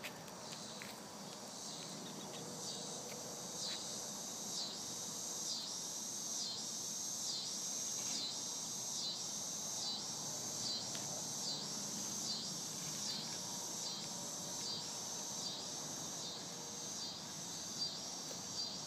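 Insect chorus: a high, steady buzzing that swells and fades in a regular rhythm about once a second.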